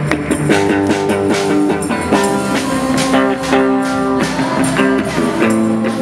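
A live band playing an instrumental passage: electric guitar notes over a drum kit keeping a steady beat.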